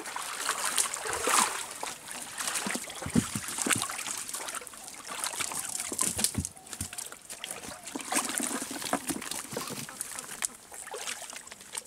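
Water splashing and dripping from a wet cast net as it is hauled into a wooden boat, with irregular knocks of the net and fish against the boat's planks.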